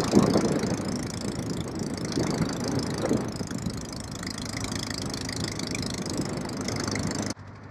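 Yamaha XJ600S inline-four motorcycle engine running with an abnormal noise, because a spark plug has come out of one cylinder and the engine is not running on all cylinders. The sound cuts off suddenly near the end.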